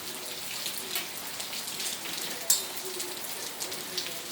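Hail pattering down, a dense, steady spatter of small impacts on the ground and surfaces, with one sharper hit about two and a half seconds in.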